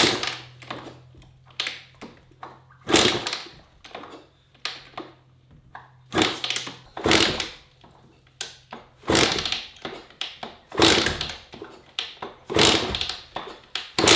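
Kawasaki KX100 two-stroke dirt bike being kick-started over and over, about one kick every one and a half to two seconds, each kick a short rush of cranking noise, with the engine not catching.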